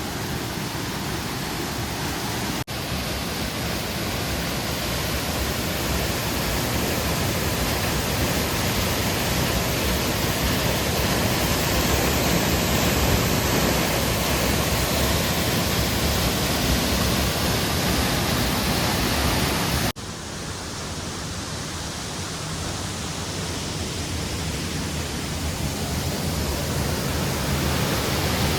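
Nangartas waterfall: a steady, loud rush of water falling from a great height. The sound breaks off abruptly about 3 s in and again about 20 s in, then carries on at a slightly lower level.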